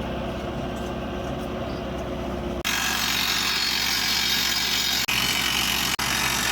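Heavy construction machinery running steadily, with a deep hum under a noisy roar. The sound changes abruptly about two and a half seconds in, becoming brighter and louder, and drops out briefly twice near the end.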